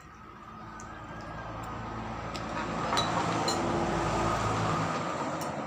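A motor vehicle passing on the road, its engine and tyre noise growing louder to a peak about three to four seconds in, then fading.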